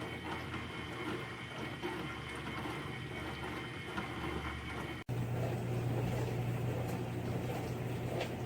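Countertop dishwasher running: water spraying and sloshing inside with a steady pump hum. There is an abrupt break about five seconds in, after which the low hum is louder.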